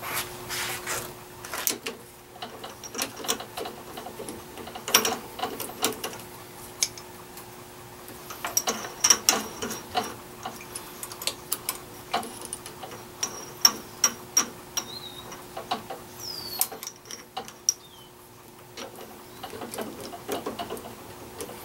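Irregular metal clicks, taps and rattles of a drill bit being changed in a drill press chuck, the chuck key turning and the bit and tools being handled, over a faint steady hum.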